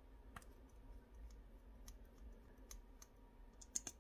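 Small plastic clicks and ticks as the screw cap of a NYX Butter Gloss lip gloss tube is twisted open. A sharper double click comes near the end as the applicator wand pulls free.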